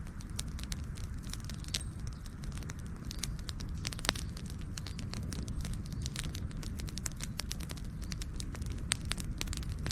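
Campfire burning with a steady low rumble of flames and many irregular sharp crackles and pops from the burning wood, one louder snap about four seconds in.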